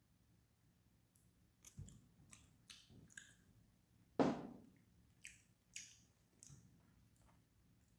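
Small clicks and knocks of eating fried chicken with metal chopsticks: chopsticks tapping the plate and the chicken box, with chewing between them. One louder knock comes about four seconds in.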